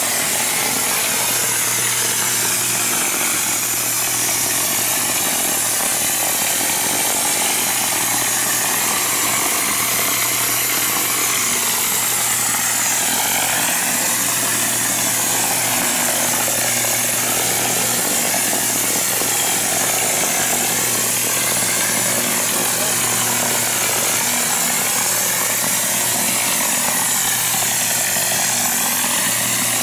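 Air-atomising GFRC spray gun hissing steadily as it sprays premix glass-fibre-reinforced concrete into a mold, with a steady low hum underneath.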